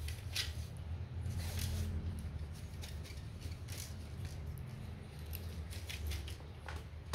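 Faint handling noises, soft scrapes and light taps, as fishing rods are moved about, over a steady low hum.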